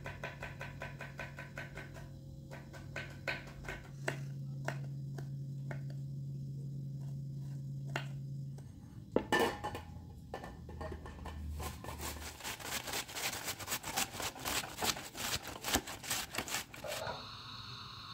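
Kitchen work: a series of clinks, knocks and scrapes of utensils against pots and dishes. The strokes come sparse at first, then turn busy and rapid about halfway through. A low steady hum underneath stops about halfway.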